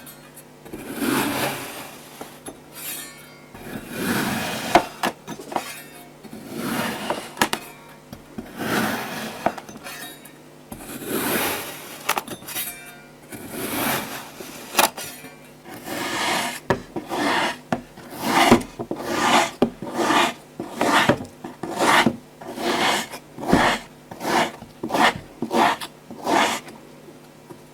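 Kinetic sand being cut and scraped with a knife: a series of gritty, rasping strokes, about one every two seconds at first, quickening to more than one a second in the second half.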